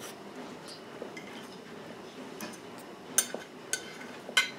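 Metal fork clinking against a dinner plate while scooping salad. There are three sharp clinks with a brief ring in the second half.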